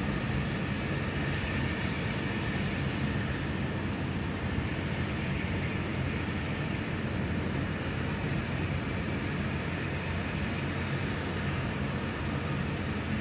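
Steady mechanical drone with a low hum and a fainter high whine, unchanging.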